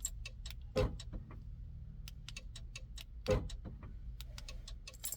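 Keys and a remote key fob being handled, a run of light clicks with two duller thumps, about a second in and just after three seconds, over a low steady hum.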